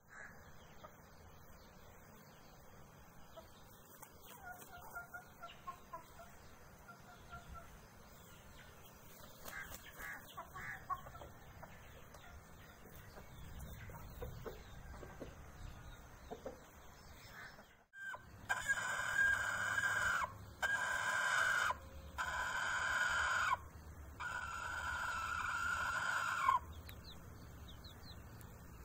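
Aseel rooster crowing loudly: long, drawn-out calls lasting about eight seconds in all, broken by a few short pauses, starting a little past halfway. Before that there are only faint soft clucks and short calls from the chickens.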